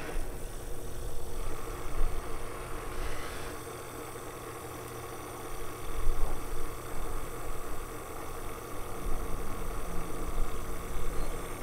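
250 PSI misting pump running steadily with a hum, a hiss joining about a second in.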